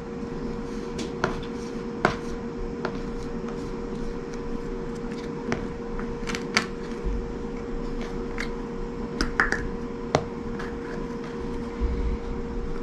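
Scattered light clicks and taps as a small plastic water dish is set into a clear plastic box and pressed down into coconut-fibre substrate, with a few soft low thuds, over a steady low hum.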